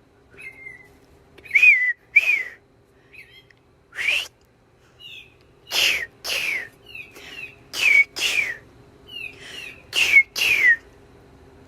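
A person and a mockingbird trading short slurred whistles back and forth. Loud notes, mostly in pairs, alternate with fainter ones.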